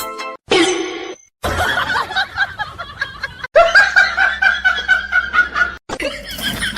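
A person snickering and laughing in quick pulses, broken by abrupt cuts from one short clip to the next.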